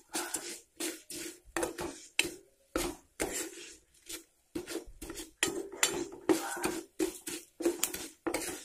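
Steel spoon stirring and scraping roasting urad dal and sesame seeds around a kadai, in repeated irregular scrapes and clinks of metal on the pan.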